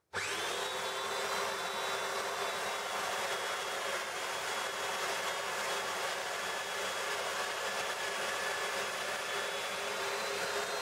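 Festool Domino DF500 joiner starting suddenly and running steadily, its motor giving an even high whine over a hiss with no change in pitch.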